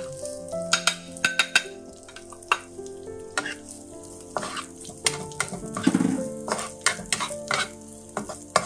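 Wooden spatula stirring and scraping chopped dried shrimps around a nonstick wok, with many quick clicks and scrapes against the pan over the sizzle of the frying oil. The shrimps are being fried until fragrant.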